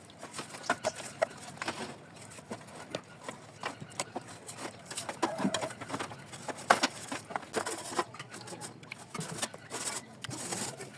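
Irregular clicks and knocks of grill machine parts being handled and set down during cleaning, a few to several per second.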